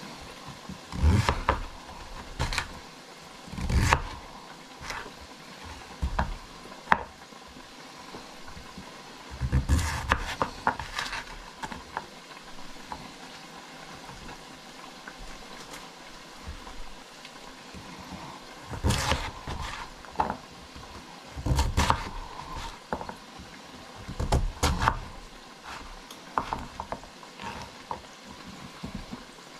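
Kitchen knife cutting through a peeled root vegetable and knocking on a wooden chopping board, in irregular clusters of knocks, with quieter stretches of slices being handled and slid on the board in between.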